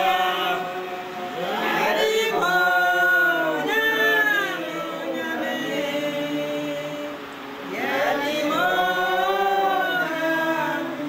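A group of people singing together without instruments, a slow hymn-like song in long held notes.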